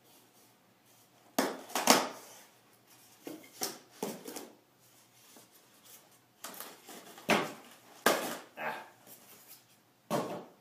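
Styrofoam packing and packed parts being handled and pulled apart: a series of irregular rubbing, scraping and knocking sounds.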